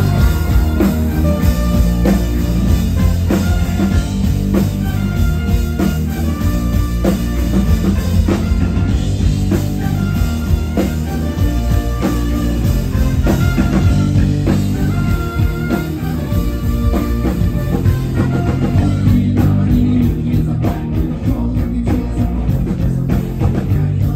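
A live rock band playing loudly, with drums, bass, electric guitar and a singing voice.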